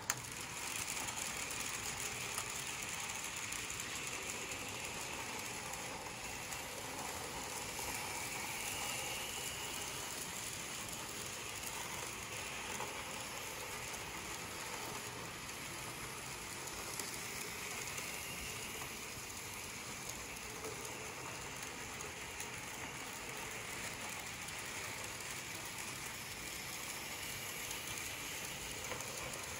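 N scale model trains running around a stacked helix of track: a steady, fine clatter of small metal wheels on the rails, with the hum of the tiny locomotive motors.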